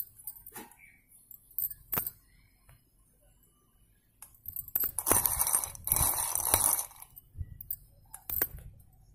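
Broken slate pencil pieces clinking together and against a glass bowl as they are handled: a few sharp clicks, then a dense clatter from about five to seven seconds in, and a couple more clicks near the end.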